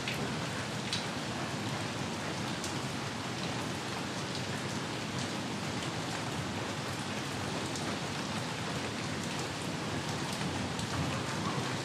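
Steady rain falling, an even hiss with a few scattered drop ticks.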